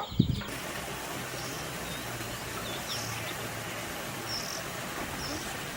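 Steady rush of flowing stream water, with a small bird giving short high chirps a few times. A brief thump at the very start.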